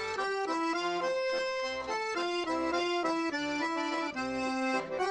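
Background music: an accordion playing a quick melody of short held notes.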